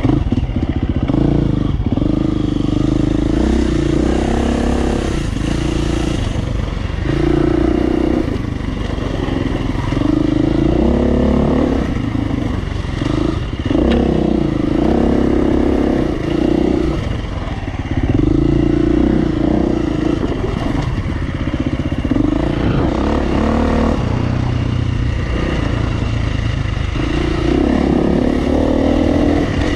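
Off-road motorcycle engine on the move, its pitch and level rising and falling every couple of seconds as the throttle is opened and closed through the trail's turns.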